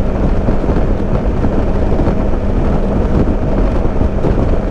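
Wind rushing and buffeting over a helmet-mounted microphone at highway speed, about 110 km/h, over the steady drone of a Suzuki V-Strom motorcycle engine. The rumble is loud and even throughout.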